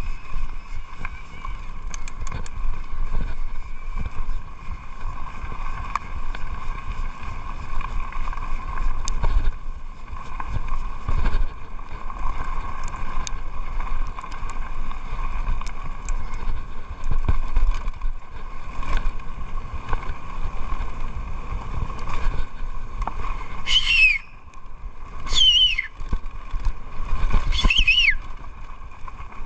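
Mountain bike descending a dirt forest trail at speed: wind rushing over the camera microphone, with tyre noise and knocks and rattles from the bike over bumps. Near the end, three short squeals sliding down in pitch as the disc brakes are applied.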